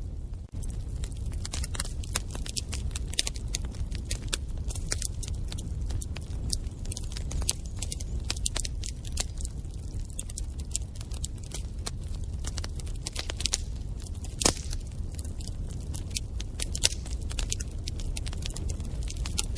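Wood fire burning in a fireplace: dense, irregular crackling and popping over a steady low rumble of the flames, with one louder pop a little after the middle.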